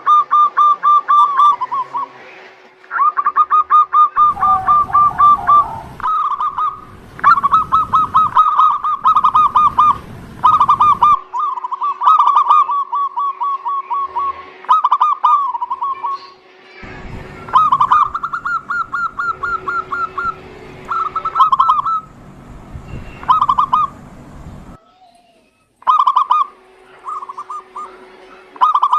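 Zebra doves (perkutut) cooing in long, overlapping phrases of rapid, repeated notes, as played for a lure (pancingan) recording to draw a quiet dove into song. A low rumbling noise comes in under the calls for several seconds at a time.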